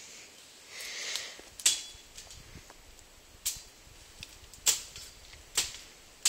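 Branches and brush being snapped and broken by hand: a brief rustling swish about a second in, then about five sharp cracks roughly a second apart.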